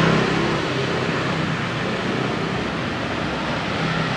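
Street traffic noise with the steady low hum of engines running close by. The hum thins out about halfway through and comes back near the end.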